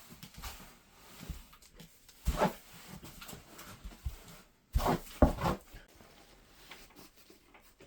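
Goats in a barn pen making a few short noises: one about two seconds in and a louder pair about five seconds in.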